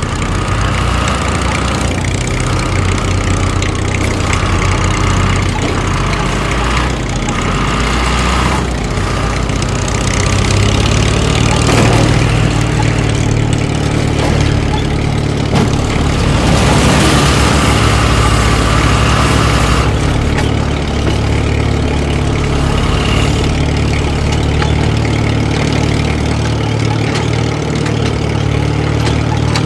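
An engine running steadily at a low, even speed, somewhat louder and fuller for a few seconds past the middle.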